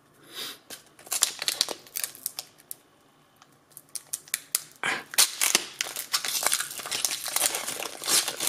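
Foil Pokémon TCG booster pack wrapper crinkling in the hands as it is picked up and handled. From about five seconds in the wrapper is torn open with a dense run of crinkling and tearing.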